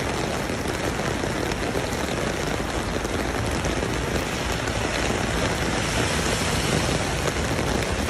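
Rain falling steadily, an even, dense hiss that holds without a break.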